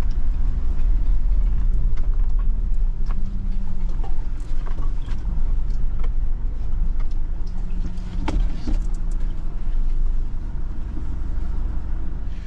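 Car driving along a road, heard from inside: a steady low rumble of engine and tyres, with scattered light knocks and rattles.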